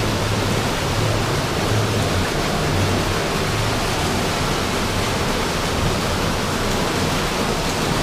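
Spa experience shower's large overhead rain head pouring water in a steady hiss of falling water, running its 'Caribbean rain' program.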